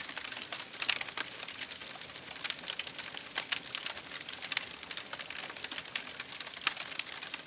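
Wood fire crackling in a fireplace: many irregular sharp pops and snaps, several a second, over a soft steady hiss.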